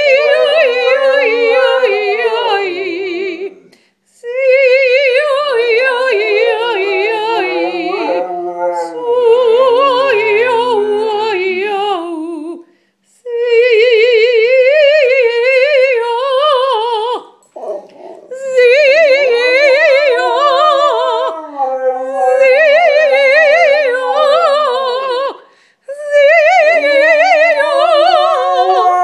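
A woman singing soprano in long held phrases with a wide vibrato while a Siberian husky howls along with her. The phrases break off every few seconds.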